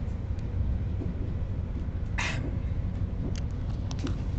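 Steady low rumble of a Class 185 diesel multiple unit, heard from inside the carriage. A short noisy sound comes about two seconds in, and a few light clicks come near the end.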